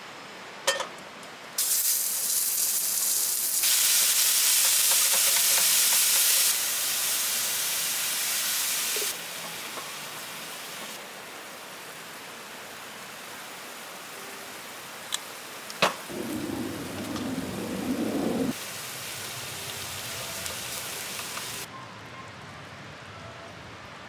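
Minced chicken sizzling as it fries in a pan, in several stretches whose loudness jumps abruptly up and down. The sizzle is loudest in the first third. There are a few sharp clicks, one about 16 seconds in, followed by a short lower, fuller stretch.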